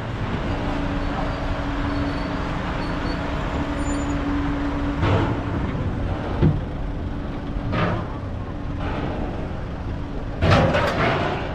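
Steady engine drone with a constant low hum as an SUV drives down a ferry's vehicle ramp. A single sharp knock comes about six and a half seconds in, and voices break in briefly near the end.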